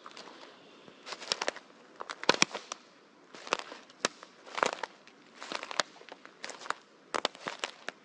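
Footsteps through dry leaf litter and fallen twigs, each step a crunch with sharp snaps of twigs breaking underfoot, at about one step a second.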